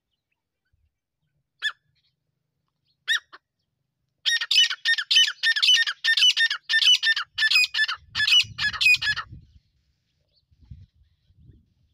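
Grey francolin calling. Two single sharp notes, then a loud, fast run of repeated ringing calls, about two or three a second, for some five seconds before it stops.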